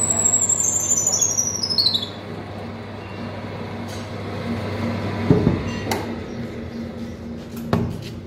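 Pillar drill press boring into a wooden beam, with a high whine that falls in pitch and fades over the first two seconds over a steady low hum. Then a few knocks and a click as the wooden beam is handled.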